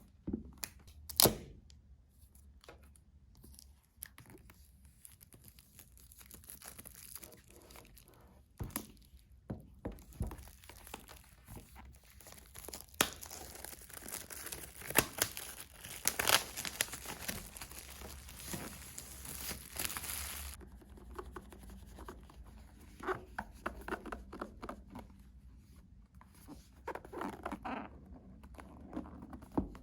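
Unboxing packaging being handled: tearing and crinkling of plastic or paper wrapping, with a longer tearing stretch in the middle and scattered taps and knocks.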